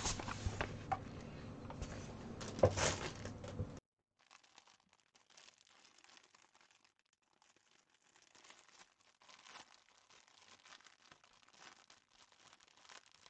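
Plastic packaging of a cross-stitch kit crinkling and rustling as it is handled, with a louder crackle about two and a half seconds in. Just before four seconds the sound drops abruptly to faint, scattered crinkles.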